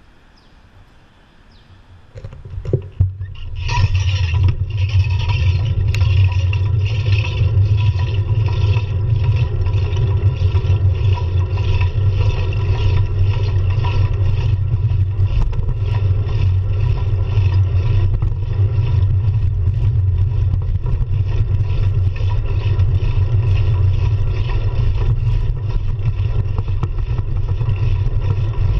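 Wind buffeting and road rumble on a handlebar-mounted action camera as a road bike pulls away and rides along a city street. Quiet at first, with a few knocks about two to three seconds in, then a loud, steady low rumble from about four seconds on.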